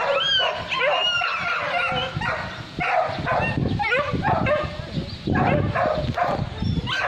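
A pack of hunting dogs yelping and barking over one another in a continuous excited chorus of short, pitch-bending calls.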